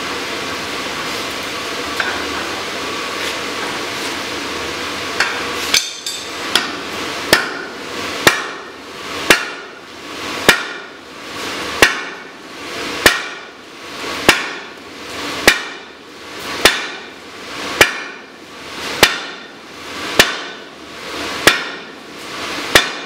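Sledgehammer striking a drift through a red-hot steel block to open the hardy hole of a striking anvil. A few light taps come about five seconds in, then heavy metal-on-metal blows at a steady pace of about one every 1.2 seconds. A steady rushing noise fills the first few seconds, before the hammering starts.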